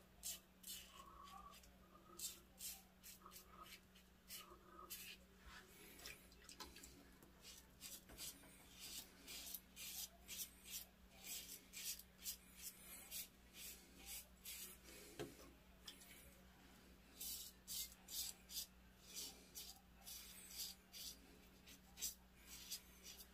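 Double-edge safety razor with a Gillette Ruby blade scraping two days' stubble through the lather: short, crisp strokes that come in quick runs, the razor "singing". A faint steady hum lies underneath.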